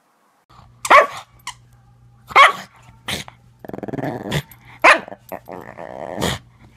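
A pug growling and giving several short, sharp barks while tugging at a plush toy held in a person's hand: play growling in tug-of-war. Growling runs between the barks in the second half.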